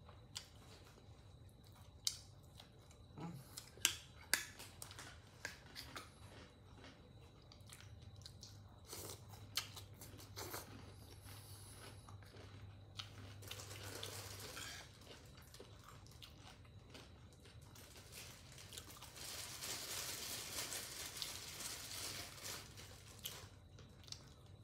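Close-up chewing and crunching of crispy fried catfish and green mango salad, with many sharp clicks through the first half and longer, louder stretches of crunching in the middle and near the end.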